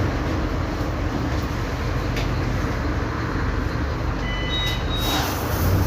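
Mercedes-Benz OF-1722M bus's 218 cv diesel engine running steadily. Near the end come a few short high beeps, then a hiss.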